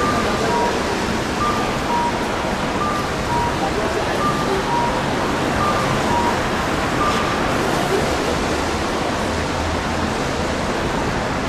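Steady, loud wash of street noise from the crowd of marathon runners and onlookers at a city intersection. Over it, an electronic pedestrian crossing signal repeats a two-note call, high then low, about every second and a half, and stops about two-thirds of the way through.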